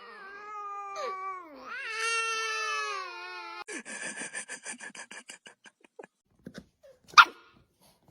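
A dog whining in a long, wavering, high-pitched whine, breaking into a fast stutter of short whimpers, then one sharp bark about seven seconds in.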